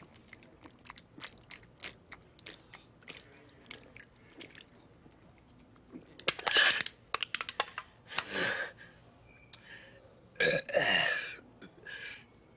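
A man chugging a can of beer in a run of quick gulping swallows. About six seconds in come loud bursts of breath and belches, the longest belch a little before the end, dropping in pitch.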